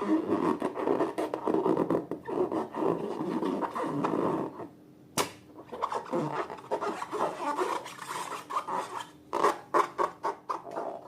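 Slime being squished and worked, giving an irregular crackly, sticky rubbing sound full of small clicks, with a brief pause and one sharp click about five seconds in.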